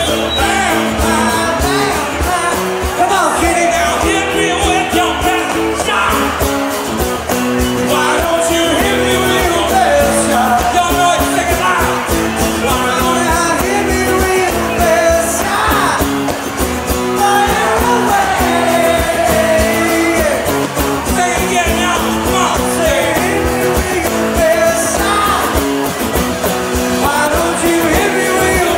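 Live country-rock band playing: strummed acoustic guitars and drums under sung vocals.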